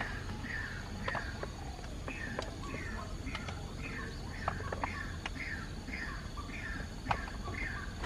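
White-breasted waterhen (ruak-ruak) call from a lure recording played to draw the birds in: a steady series of short falling notes, about two to three a second, with occasional faint clicks.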